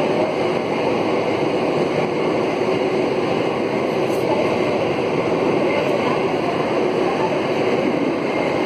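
Alstom AS02 steel-wheeled metro train running at speed, heard from inside the car: a steady noise of wheels on rails that holds an even level throughout.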